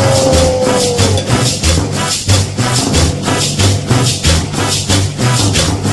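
Cumbia music: a shaker keeps a steady beat over a bass line, and a single tone slides downward and ends about a second in.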